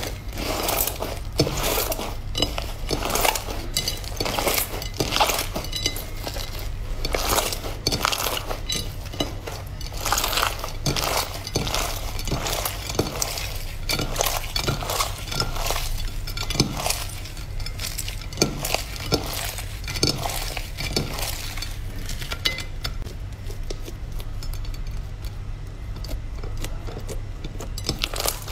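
Slime being pressed and handled, giving a dense run of crisp clicks and crackles that thins out near the end, over a steady low hum.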